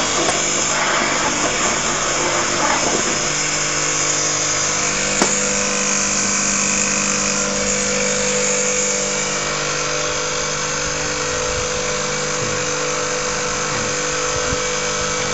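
Electric grinding mill of the kind used to make sesame-oil paste running steadily, a motor hum with grinding noise as it turns out brown paste. The grinding is rougher for the first three seconds, then settles into an even hum with a single sharp click about five seconds in.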